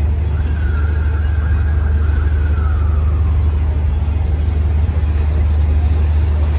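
Steady low engine rumble with general traffic noise, and a faint high tone that slides gently downward over the first few seconds.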